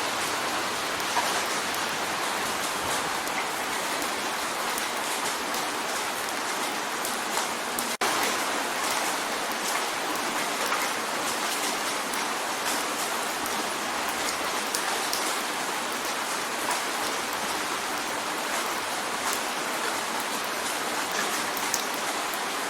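Steady rain drumming on a window pane: a dense, even patter of many drops, with a momentary dropout about eight seconds in.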